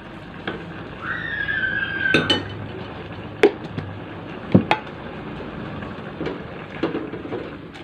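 A spoon knocking and scraping in an aluminium pot as cassava porridge is stirred, with several sharp clinks. The loudest come about three and a half and four and a half seconds in.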